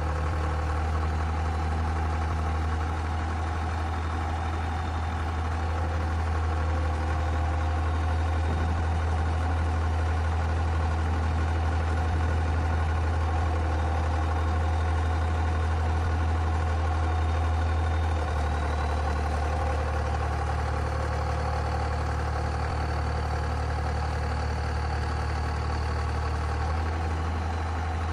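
Cummins 75 kW diesel engine of a crawler pile driver running steadily, with a deep constant hum. Its tone shifts slightly about two-thirds of the way through and again near the end. No hammer blows are heard.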